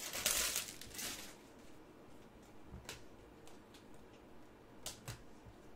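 Foil trading-card pack wrapper crinkling as it is pulled off, for about a second. Then a few faint clicks as the cards are thumbed through by hand.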